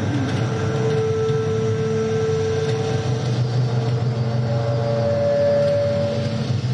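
Live electronic drone music: a steady low rumble with long held tones above it, one tone giving way to a higher one about halfway through.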